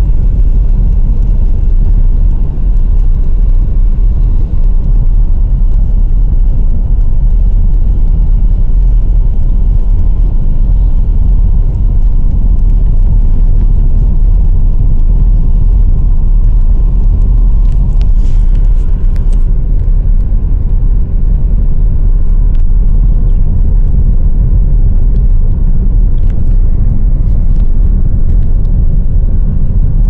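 A car driving along a road, heard from inside the vehicle: a loud, steady low rumble of engine, tyres and wind. A short higher hiss comes a little past the halfway point.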